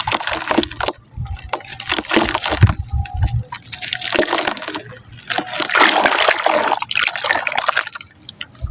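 Very soft mud crumbling in water, with crackling, splashy noise in about four bursts of a second or so each.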